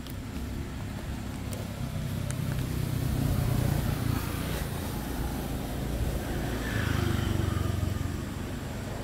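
Low outdoor rumble that swells twice, about three seconds and about seven seconds in.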